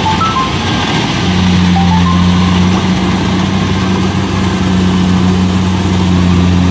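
Crawler rice combine harvester's engine running steadily as the machine tracks through a muddy paddy. A short electronic melody of rising beeps sounds at the start and again about two seconds in.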